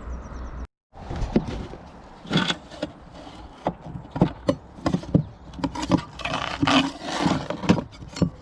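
Irregular knocks, scrapes and clatter of an old roof-mounted TV aerial being worked loose and lifted off a motorhome roof, over a low steady rumble. The sound cuts out completely for a moment about a second in.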